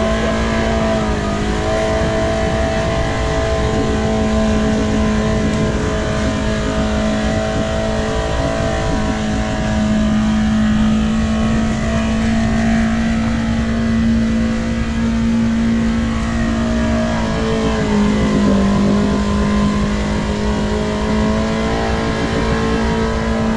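Side-by-side UTV engine held at steady high revs while wading through deep mud water. The pitch sags briefly about a second in and again near the end, then climbs back.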